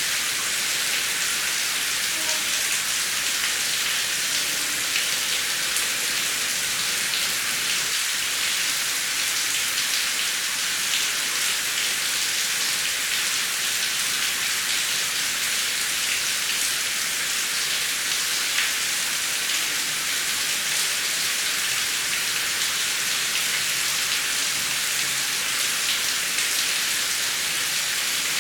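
Steady heavy rain: a dense, even hiss with scattered drop ticks and no thunder.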